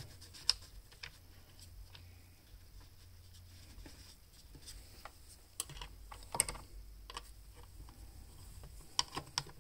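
Scattered light clicks and taps of fingers and an Allen key working a screw in a chainsaw's plastic air filter cover, with a few sharper clicks about six seconds in and near the end.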